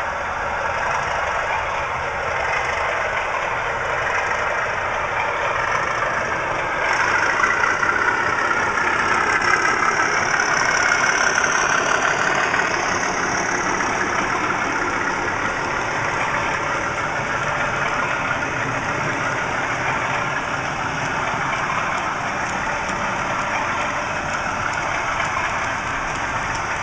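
Model Class 37 diesel locomotive's sound-decoder engine running steadily, mixed with the running noise of the model train on its track. The engine note swells and shifts in pitch for a few seconds about a quarter of the way in, then settles.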